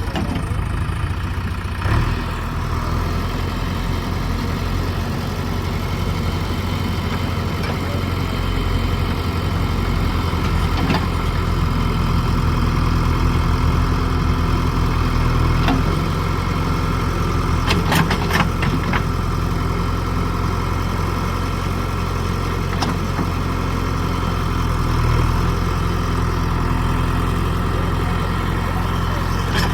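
An engine running steadily at low revs, with a few sharp clicks about 18 seconds in.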